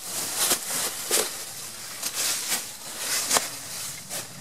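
Footsteps crunching and scuffing through dry fallen leaves over rock, with irregular sharp crackles about once or twice a second over a steady rustle.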